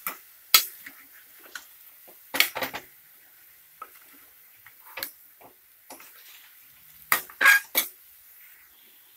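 Metal ladle scraping and clinking against the sides of a pressure cooker while stirring chicken pieces frying in ginger-garlic paste, in short strokes a second or two apart, with a louder cluster near the end.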